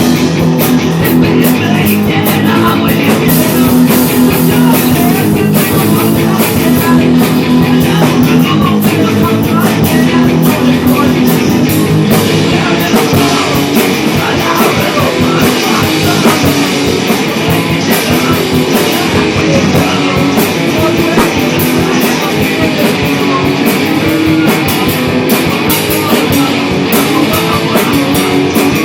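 Rock band demo recording in a punk-rock style: guitar and drum kit playing loudly, with a steady beat of drum hits.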